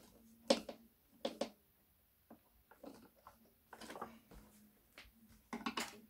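Screwdriver and hard plastic clicking and knocking as a screw is driven into the handle of a Hoover Purepower upright vacuum cleaner: scattered short clicks, with a quick cluster near the end.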